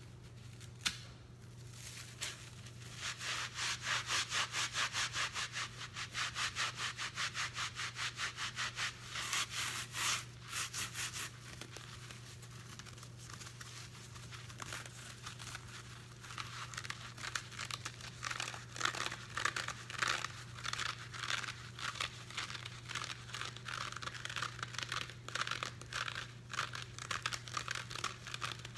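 Hands squeezing and scrunching soap-soaked sponges in thick dish-soap suds: fast, repeated wet squelching and crackling foam, several squeezes a second. The squeezing eases off for a few seconds in the middle, then picks up again.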